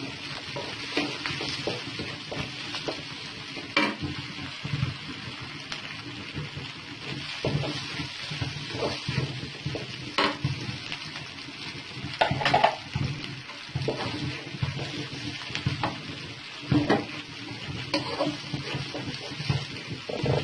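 Carrots and green chillies sizzling as they are stir-fried in a pan, with a steady frying hiss and a stirring utensil knocking and scraping against the pan every few seconds.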